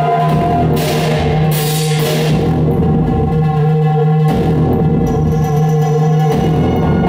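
Loud live electronic noise music: a steady low drone under layered held tones, with washes of hiss that swell up about a second in and abrupt shifts in the texture around four and six seconds in.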